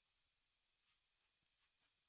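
Near silence: faint room tone with a low hiss.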